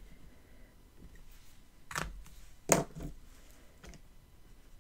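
Two short taps, the second louder, from a pencil and paper being handled on a planner page, over quiet room tone.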